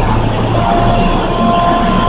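Kintetsu limited express train at the platform, a loud steady rumble. About half a second in, a steady high two-note tone joins it and holds.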